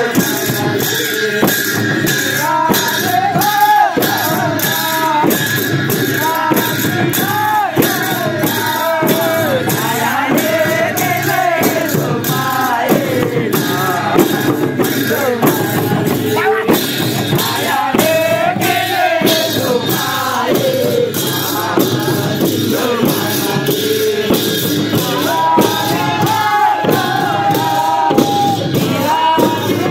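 Kaura folk music: a group of men singing together over a steady beat of madal hand drums.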